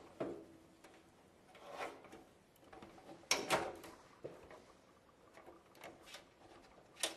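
Scattered light knocks and scrapes as a motherboard is handled and set down onto the standoffs of a computer case's motherboard tray, the loudest pair of knocks about three and a half seconds in.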